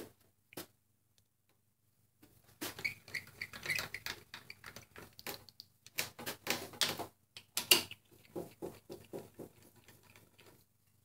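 Metal hand tools and steel bolts clinking and rattling against the aluminium transmission case as the case bolts are run in by hand: irregular clicks, one sharper clink midway, then a quick series of evenly spaced clicks near the end.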